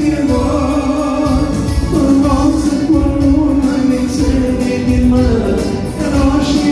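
Loud dance music with a singing voice over a steady beat.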